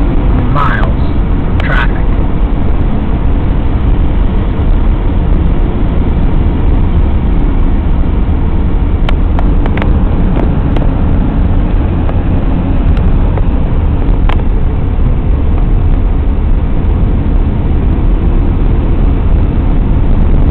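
Steady road and engine noise heard inside a moving car's cabin, heaviest in the low rumble.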